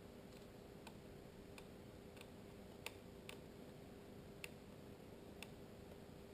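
Faint, irregular light clicks of small camera parts being handled and fitted together, about eight over a few seconds, over a faint steady hum.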